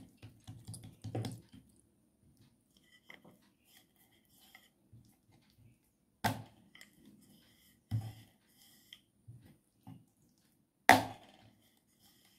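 Soft pats and rubbing of hands pressing oiled dough flat on a wooden board, with a few sharp wood-on-wood knocks, the loudest near the end, as a wooden rolling pin comes into use.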